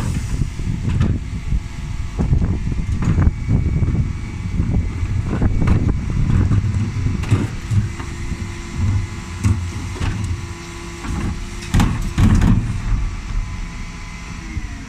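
Rear-loading refuse lorry running, with its Terberg rear bin lift cycling wheelie bins: repeated sharp clattering knocks of plastic bins being hooked on, tipped and knocked back down, over a steady low rumble. A steady hum holds for a few seconds in the middle.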